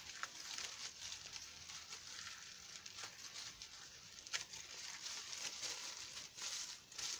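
Tissue paper rustling and crinkling as it is unwrapped by hand, with a couple of sharper crackles.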